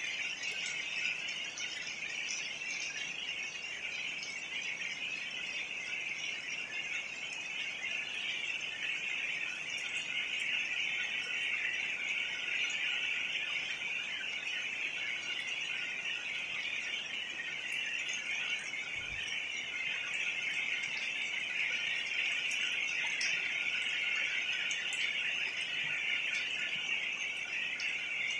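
A steady, dense high-pitched chorus of calling animals over a faint hiss of rain, with a brief low thump about 19 seconds in.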